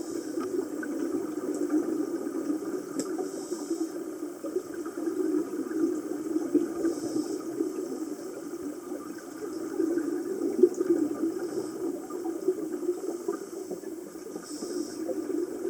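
Underwater sound during a scuba dive: a steady low watery rushing, with a short hiss of bubbles every few seconds, typical of a diver exhaling through a regulator.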